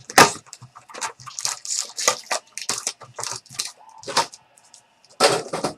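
A trading card pack being opened and its cards handled: irregular crinkling, tearing and rustling of the wrapper and card stock, with louder bursts just after the start and again near the end.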